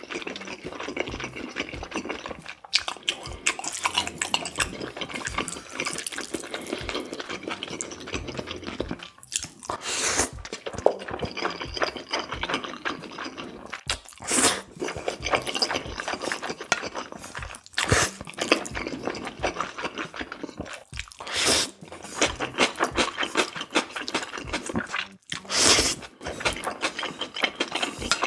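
Close-miked eating of cold spicy bibim-myeon noodles: continuous wet chewing and lip smacking, with about five louder slurps of noodles a few seconds apart.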